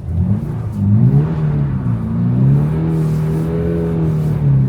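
Toyota GR86's flat-four boxer engine revving under throttle. The revs climb, dip, then hold high and steady for about two seconds before falling off near the end.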